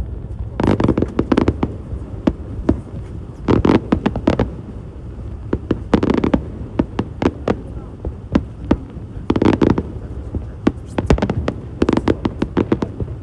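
Aerial fireworks bursting: many sharp bangs and low booms in irregular clusters, with rapid crackling runs between them.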